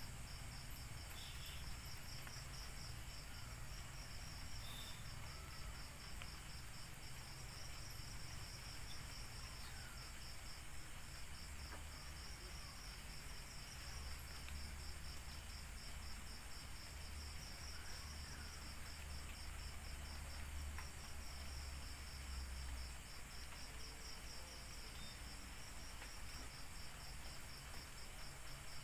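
Night insects calling in a high, fast, evenly pulsing trill, like crickets, over a low rumble.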